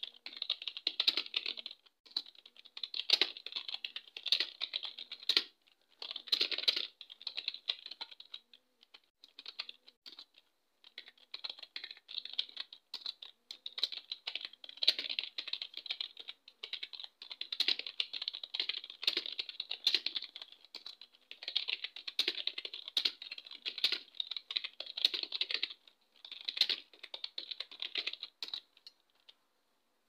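Fast touch-typing on a full-size wired computer keyboard at about 45 words a minute: runs of rapid key clicks broken by brief pauses.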